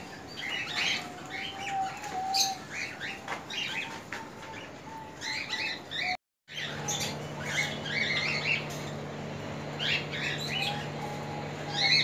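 Many small caged birds chirping and calling together throughout. About six seconds in there is a brief dropout, after which a low steady hum sits under the chirping.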